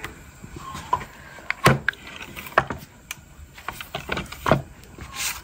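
Wooden tortilla press being handled: several sharp wooden knocks and clacks, the loudest a little under two seconds in.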